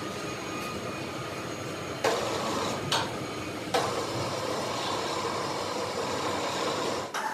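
Workshop machinery running steadily with a dense mechanical noise, broken by sharp knocks about two, three and nearly four seconds in; it stops abruptly near the end.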